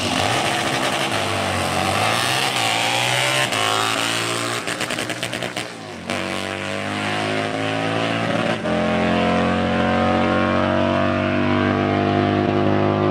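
Drag-racing motorcycle engine at full throttle on a quarter-mile pass, its pitch climbing through each gear and dropping back at every upshift.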